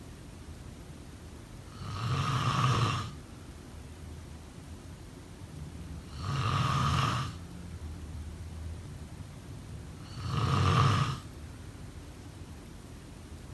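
A person snoring: three snores about four seconds apart, each lasting about a second.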